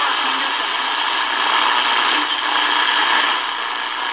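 Shortwave static and hiss from a Tecsun DR-920C portable radio's speaker as it is tuned down from about 5.155 to 5.14 MHz, with no clear station coming through. The hiss swells a little in the middle.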